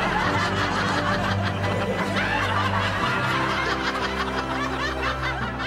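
Canned audience laughter, snickers and chuckles, over light background music with held notes.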